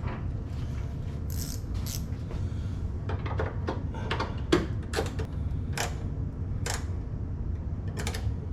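Sharp metallic clicks of a hand tool tightening a 10 mm bolt on a hood latch mechanism, a dozen or so irregularly spaced clicks mostly in the second half, over a steady low hum.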